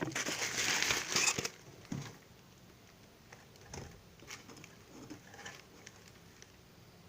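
Packaging crinkling as it is handled for about a second and a half, then stopping, followed by a few faint scattered light taps.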